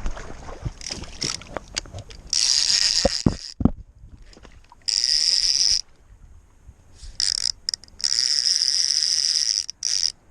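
Fishing reel whirring in several sharp-edged bursts of about a second each, a high ratcheting buzz, after a stretch of scattered clicks and knocks of rod handling.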